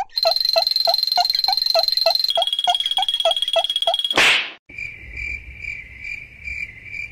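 Cartoon sound effects. First comes a rapid chirping tick, about four a second, over a steady high tone that steps down in pitch about halfway through. A short swoosh follows around four seconds in, then a softer tone pulsing about three times a second.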